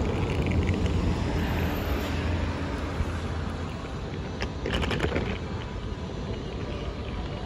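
Hard-shell rolling suitcase's wheels rumbling steadily over granite paving tiles, with a brief louder rattle about five seconds in.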